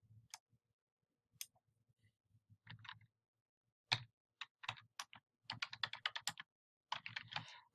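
Faint typing on a computer keyboard: a few separate clicks at first, then quick runs of keystrokes as a short note is typed.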